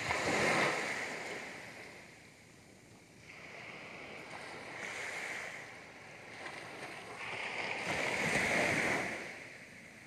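Small sea waves breaking and washing up a sandy beach in three surges: a loud one at the start that dies away, a softer one around the middle, and another loud one near the end.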